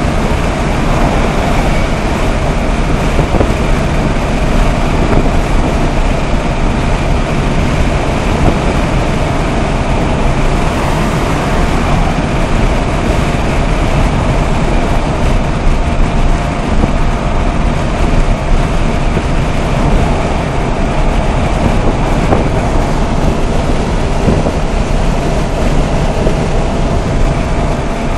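Fiat Panda's 1.0 FIRE four-cylinder engine, worn and high-mileage, running steadily at a motorway cruise of about 130 km/h. It is heard from inside the cabin, mixed with loud, steady road and wind noise.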